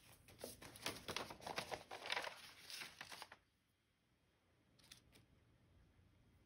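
Soft rustling of stranded embroidery floss being handled and drawn out to start a new thread, for about three seconds, then two faint clicks about five seconds in.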